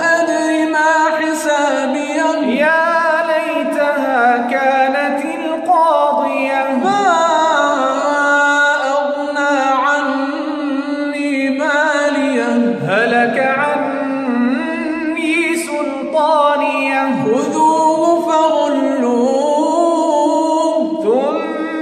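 Solo voice reciting the Quran in melodic tajwid style, drawing out long ornamented notes with a wavering pitch, broken by short pauses between phrases.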